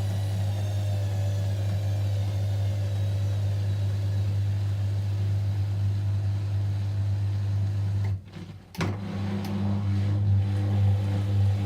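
Whirlpool washing machine running a 30° delicate cycle: a steady motor hum, with a whine that falls in pitch over the first few seconds. About eight seconds in, the motor cuts out for about half a second and then starts again.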